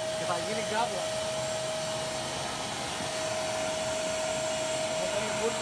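Vacuum cleaner running with a steady whine, sucking cleaning solution out of car upholstery.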